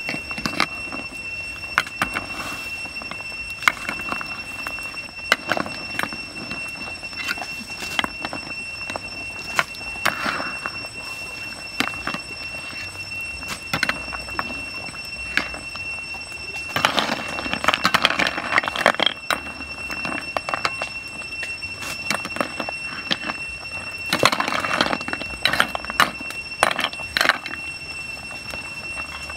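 Snails boiling in a wok of water over a wood fire, with bubbling, the fire crackling in short clicks, and a metal ladle stirring, in louder spells a little past halfway and near the end. A steady high-pitched whine runs underneath throughout.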